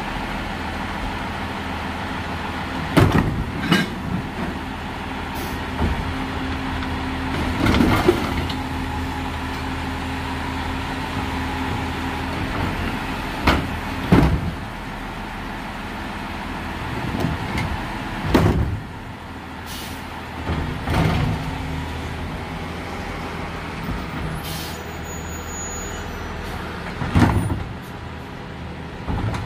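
Freightliner M2 garbage truck's diesel engine running steadily, broken by several sharp clanks and bangs from its Labrie Helping Hand automated side-loader arm working the curbside carts, with air-brake hisses.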